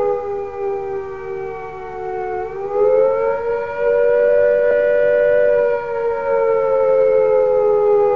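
British civil defence attack-warning siren wailing with a rising and falling pitch: it sinks, climbs about two and a half seconds in, holds, and slides down again near the end. This wavering tone is the signal that an attack is imminent.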